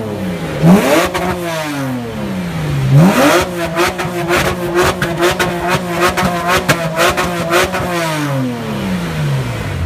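A parked car's engine being revved: two quick blips, then held high and steady for about five seconds with a rapid crackle through it, before the revs fall back toward idle near the end.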